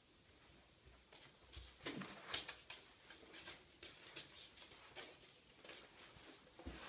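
Siamese kitten batting a small toy around an empty bathtub: faint, irregular taps, skitters and scratches of paws, claws and toy on the tub's smooth floor, starting about a second in, with the sharpest tap a little after two seconds.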